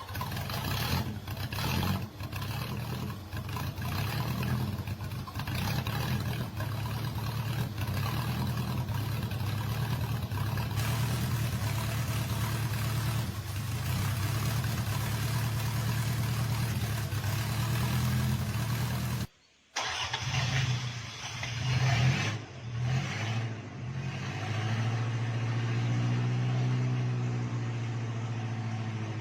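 Freshly rebuilt Toyota engine running steadily at idle. It breaks off briefly about two-thirds of the way in, then comes back with a few short revs before settling to a steady idle again.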